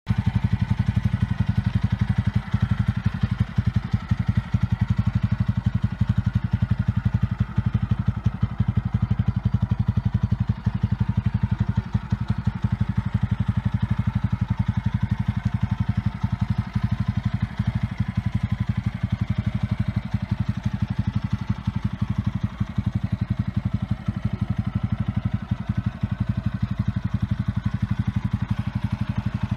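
TVS Apache RTR 200 4V's single-cylinder engine idling steadily, with a rapid, even pulse of exhaust beats and no revving.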